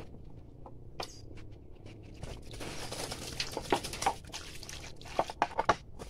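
Crackly rustling of a plastic bottle being handled and set down on dry leaf litter, with a few sharp clicks in the middle and a quick run of sharp clicks near the end.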